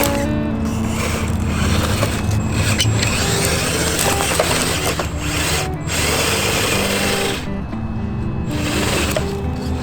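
An RC scale crawler's electric motor and geartrain whirring as it drives, with background music over it.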